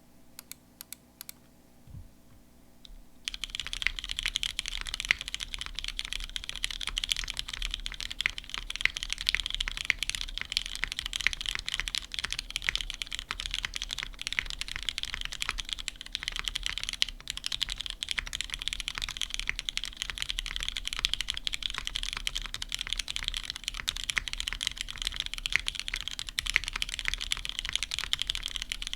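Moment Proto 2 mechanical keyboard with Hyperglide linear switches in a polycarbonate full plate being typed on: a few single keystrokes, then steady fast typing from about three seconds in. The switches are ones the owner calls kinda scratchy.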